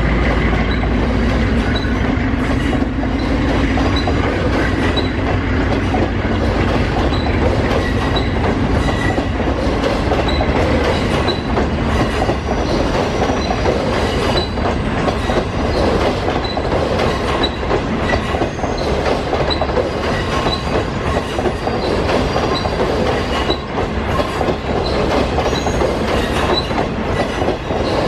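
Train of green passenger coaches rolling slowly past, its wheels clicking over the rail joints in a steady rhythm over a continuous rumble.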